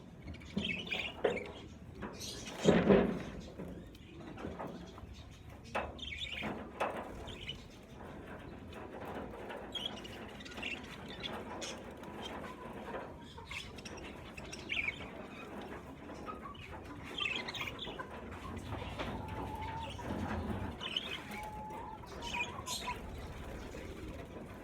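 A flock of budgerigars in a flight cage chirping, with bursts of wing flapping, the loudest about three seconds in.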